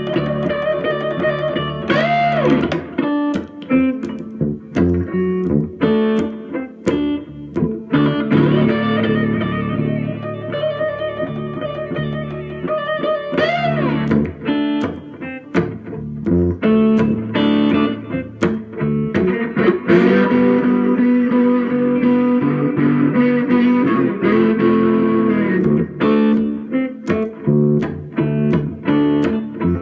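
Electric guitar, a 335, played slide with a big bottle: plucked notes and chords, with the pitch swooping up and back down into notes a couple of times.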